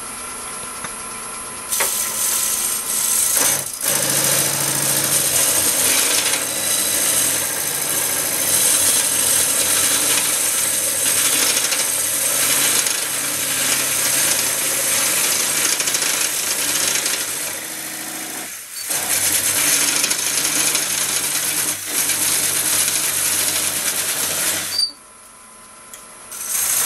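A Korpro coring cutter on a One Way coring system cutting into a spinning bowl blank on a wood lathe: a loud, rough cutting noise as ribbons of chips stream off, with the lathe's steady hum underneath. The cut starts about two seconds in, breaks off briefly past the middle, and stops for a couple of seconds near the end before starting again.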